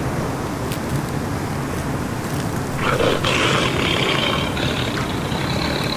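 Night forest ambience: a steady low rumble throughout, and about three seconds in a high rasping call or buzz starts and runs on.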